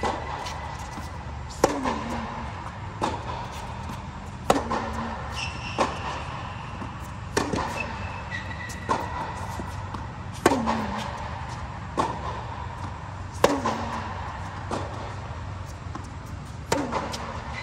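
Tennis rally inside an air-supported dome: the ball is struck back and forth by rackets about every one and a half seconds, with loud near-court strokes alternating with fainter hits from the far end, over a steady low hum.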